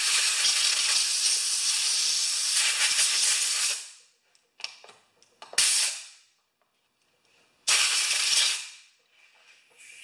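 A compressed-air blow gun hissing as it blows dirt and debris off a lawnmower engine. There is one long blast of about four seconds, then a faint puff and two short blasts of under a second to about a second, each cut off sharply.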